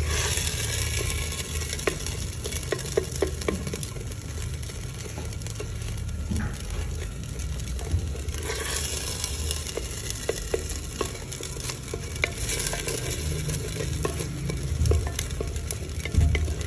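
Wooden spatula stirring and scraping thick semolina halwa in a clay pot, with scattered clicks and knocks against the pot. The soaked semolina sizzles as it fries in hot sugar syrup and oil. A steady low rumble runs underneath.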